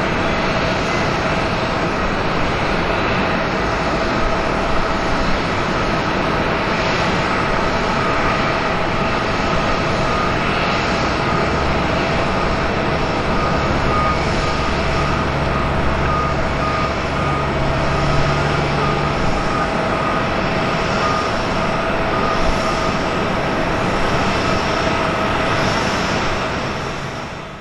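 Rolls-Royce Trent XWB jet engines of an Airbus A350-941 running: a loud, steady rush with a held whine of two tones, fading out at the very end.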